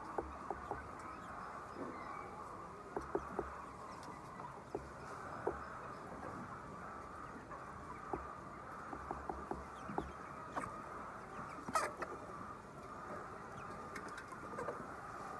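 A flock of chickens in a poultry house: a steady mass of clucking chatter, with scattered small clicks and one sharper click about twelve seconds in.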